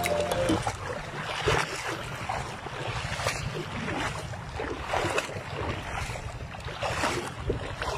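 Water splashing as people wade through a shallow river, in uneven splashes every half second or so, with wind buffeting the microphone.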